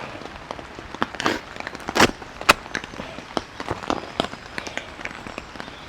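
Plastic food packaging crackling and snapping as it is cut open across the top and handled, a run of sharp clicks with two louder snaps about two seconds in.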